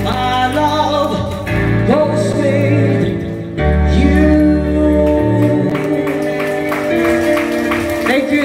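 A song: a sung vocal over sustained bass and chords.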